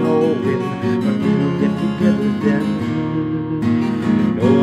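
Acoustic guitar strummed steadily, with a man singing along.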